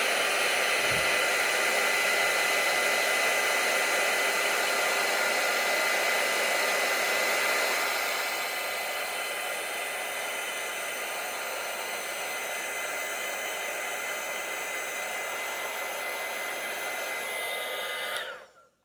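Hot-air blower running steadily with a high fan whine, shrinking heat-shrink tubing over a repaired USB cable end. It drops in loudness about eight seconds in and switches off near the end.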